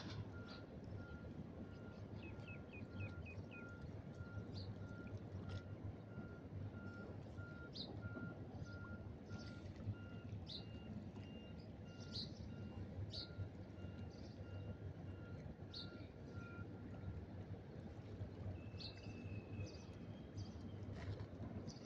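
Seaside ambience: a low steady noise of wind and water. Over it come scattered short bird chirps and a run of evenly spaced high beeps, about two a second, which stops about 17 seconds in.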